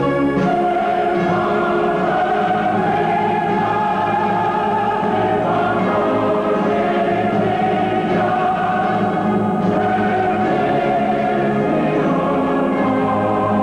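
Music with a choir singing long held chords that change slowly.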